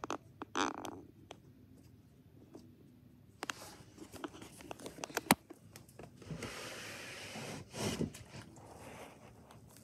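Plastic reptile-rack tub being handled and slid in its rack: clicks, a sharp knock, then scraping of plastic on plastic, loudest about eight seconds in.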